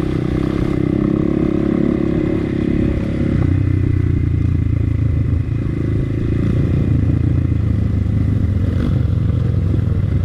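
Motorcycle engine running steadily while being ridden at low speed.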